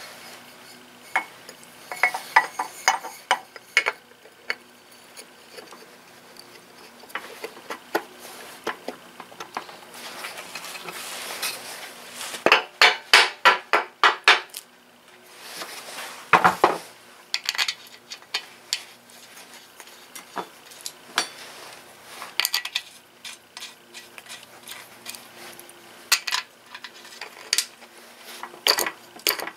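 Metal tools and engine parts clinking and clanking as they are handled on a workbench. Near the middle comes a quick run of about ten sharp metallic clicks, followed a couple of seconds later by a heavier knock.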